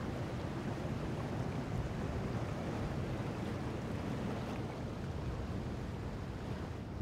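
Steady rushing outdoor ambience, heaviest in the low end, with no distinct events; it eases slightly near the end.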